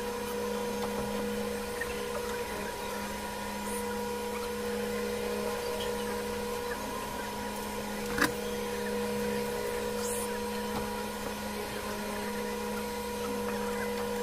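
Steady machine hum carrying a few level tones, one of them cutting in and out every few seconds, with a single sharp click about eight seconds in.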